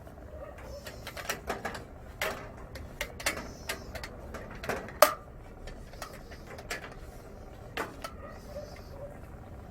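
Irregular clicks and knocks of objects being handled, the sharpest about five seconds in.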